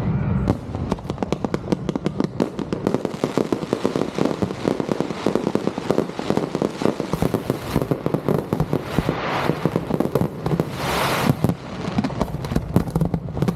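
Fireworks going off: a dense, rapid string of crackling pops throughout, with two louder hissing bursts, about halfway through and again toward the end.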